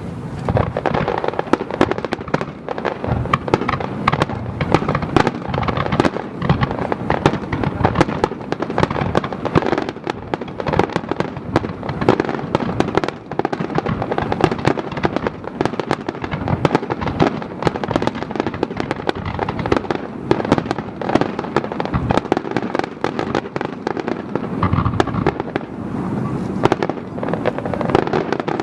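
Aerial fireworks display in a dense barrage: rapid, overlapping bangs and crackles with hardly a break.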